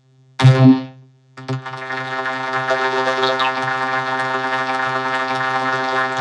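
Cartoon chorus vocals run through a vocoder, turning them into a synth-like buzzing chord held on one pitch. A short burst comes about half a second in, and after a brief silent gap a long, even drone sets in.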